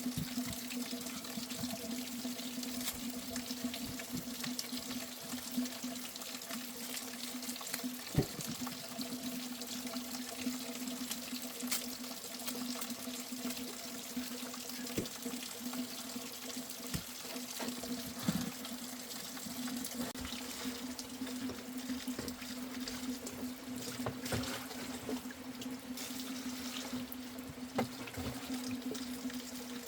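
Water running and trickling steadily, with a steady low hum and scattered small clicks.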